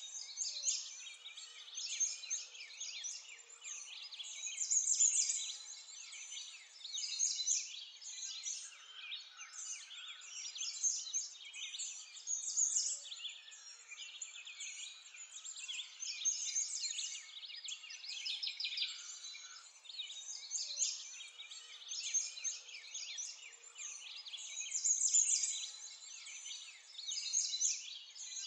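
A dense chorus of small birds chirping and twittering, with louder clusters of song every second or two.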